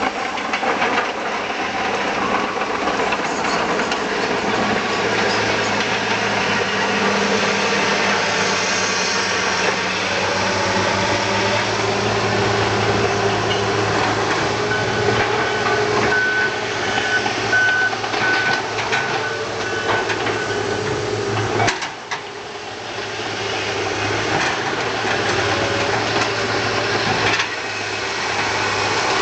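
A motor or engine running steadily, with a low hum and a faint high whine that comes and goes. It dips briefly about two-thirds of the way through, then carries on.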